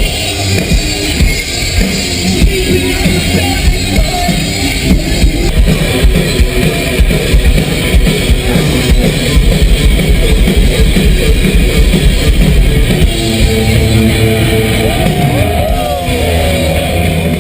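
Live rock band playing loudly through a festival PA, drums and guitars with some singing, heard from the crowd. A few sustained notes ring out near the end.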